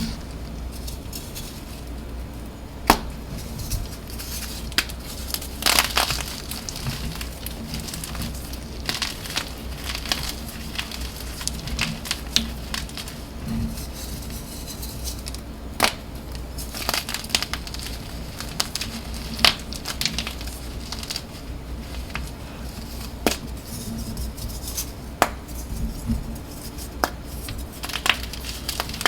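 Dyed blocks of BSN gym chalk being crushed and crumbled, giving irregular sharp cracks over a steady crackling.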